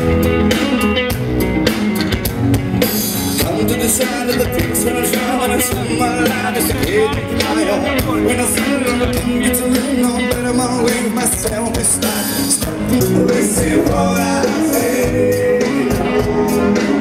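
Rock-and-roll song with singing and a band, playing as background music.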